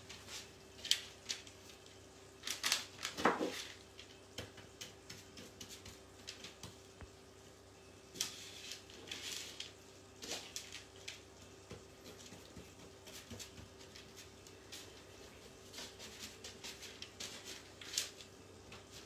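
A spoon scraping and pressing a crumbly chocolate mixture on baking paper, with the paper rustling and short, scattered scrapes and taps.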